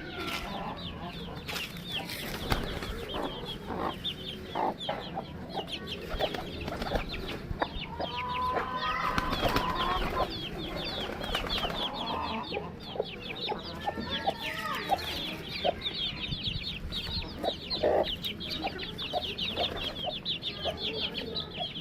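Chickens clucking, with a few louder drawn-out calls, over a constant chorus of high, rapid chirping from small birds or chicks, and scattered light taps.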